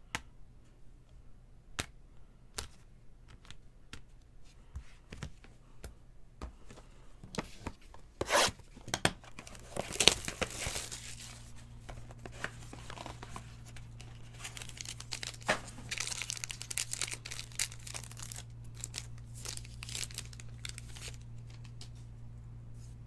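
Trading cards and a cardboard box being handled: scattered light clicks and taps, then tearing of the cardboard box about eight to eleven seconds in, followed by softer scraping and sliding of cards. A faint low steady hum comes in about eleven seconds in.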